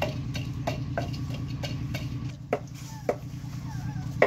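A utensil knocking and scraping against a cooking pot while a soup is stirred, about three knocks a second, over a steady low hum.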